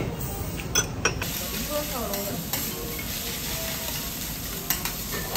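Fried rice sizzling on a hot teppanyaki griddle as metal spatulas stir and scrape it. A couple of sharp clinks come about a second in, then a steady sizzle.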